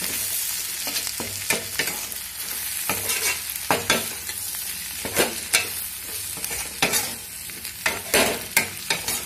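Onions and garlic frying in oil in a stainless steel kadai, stirred with a metal ladle: a steady sizzle broken by irregular scrapes and clinks of the ladle against the pan.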